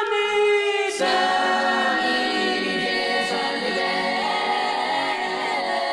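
Music: sustained wordless vocal harmonies, choir-like, with accompaniment, in an instrumental break of a song.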